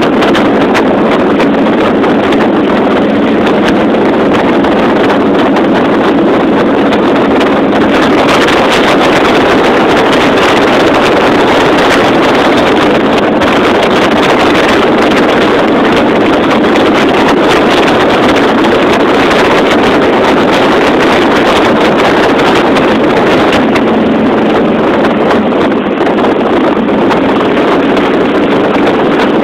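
Cruiser motorcycle riding steadily at road speed: loud wind rushing over the handlebar-mounted microphone, with the engine running steadily underneath.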